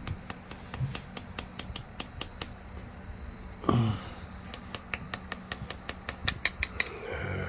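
Rapid, uneven run of sharp mechanical clicks, several a second, as a seized old Mercury outboard distributor is worked by hand on a test rig, with a short grunt about four seconds in.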